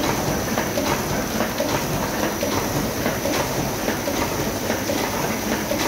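Chinese 16x22 sheet-fed offset printing machine running, a steady mechanical clatter with quick, regular clicks.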